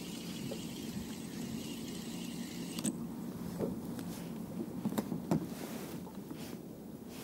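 Spinning reel being cranked with a faint steady whirr. About three seconds in it stops, followed by a few light clicks and knocks as a caught smelt is handled in the inflatable boat.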